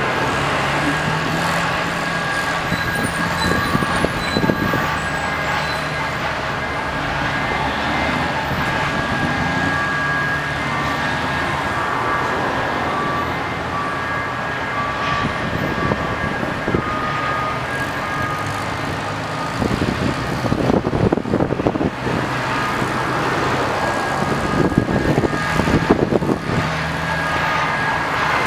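Rail crane's engine running steadily while the crane works, with a backup alarm beeping on and off and a few bursts of metal clanking about 4 seconds in and again past the 20-second mark.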